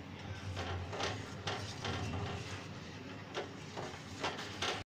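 Steel ladle stirring thickened milk and grated bottle gourd in a stainless steel pan: repeated scrapes and light knocks of metal on metal at uneven intervals, roughly two a second, over a low steady hum.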